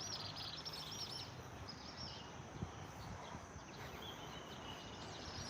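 Outdoor ambience of small wild creatures chirping: many short, high chirps repeating over a steady background hiss, thickest in the first second and again near the end.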